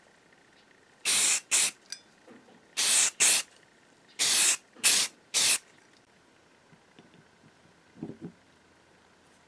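Aerosol spray paint can hissing in seven short bursts, grouped two, two and three, as grey paint goes onto the drill parts. Near the end there are a couple of faint handling knocks.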